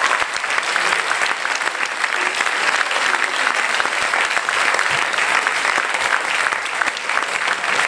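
Audience applauding: steady, dense clapping that does not let up.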